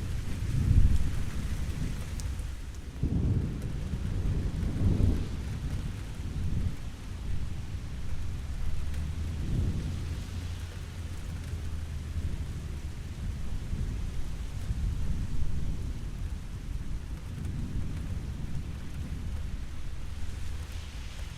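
Steady rain with low thunder rumbling over it several times, the strongest rolls about a second in and again between three and five seconds in.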